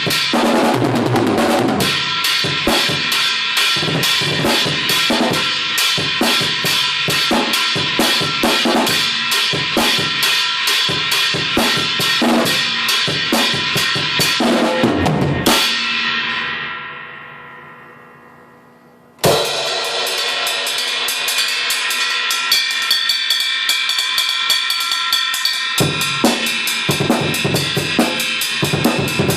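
Drum kit played with fast cymbal strokes over kick and snare, featuring a homemade 16-inch inverted brass china cymbal cut down from a Meinl HCS ride and drilled full of holes. About fifteen seconds in, one crash is left to ring out and fade for a few seconds. The playing then starts again with quick strokes.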